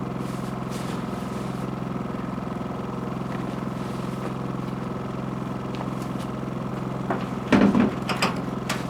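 Electric air-mattress inflator running with a steady hum as it fills an air mattress. Near the end come a few loud knocks and rustles.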